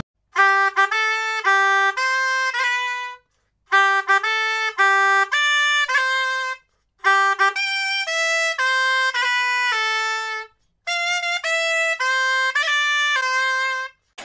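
Music: a simple melody of steady, clean notes on a single wind instrument, played in four short phrases with brief silences between them.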